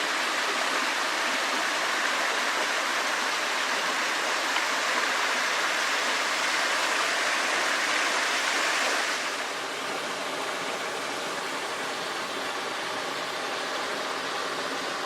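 Mountain valley stream rushing over rocks, a steady wash of water noise that turns a little quieter and duller about nine seconds in.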